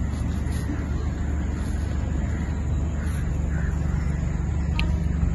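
A steady low rumble with no clear events in it, the kind made by wind on the microphone or distant traffic.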